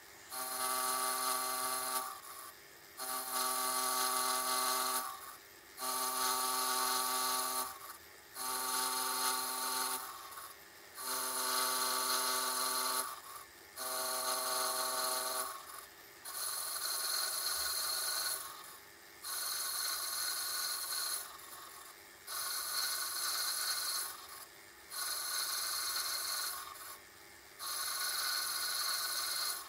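Metal lathe turning a Stuart S50 cylinder cover casting, the tool cutting in about a dozen short spells of roughly two seconds with brief breaks between. A steady whine rides along with the cuts in the first half, then the cutting goes on as a rougher, noisier hiss.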